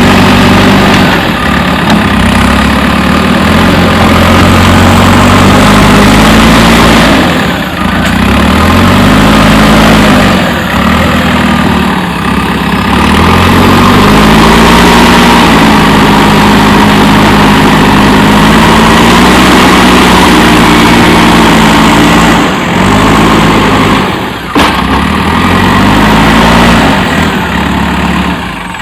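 Diesel engine of a JCB 3DX backhoe loader running hard, its pitch rising and falling again and again as it works, with a few brief dips.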